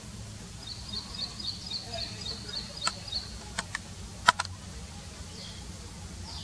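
Low, steady rumble of an approaching diesel locomotive still some way off, with a bird calling in quick repeated high chirps during the first half. A few sharp clicks come near the middle, the loudest about four seconds in.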